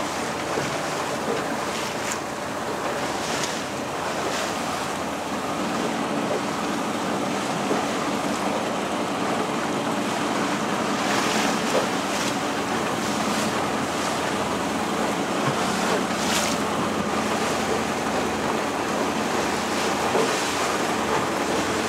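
Steady rush of wind and water from a very small boat under way, with surf breaking on rocks and the boat's motor running underneath. A few brief gusts buffet the microphone.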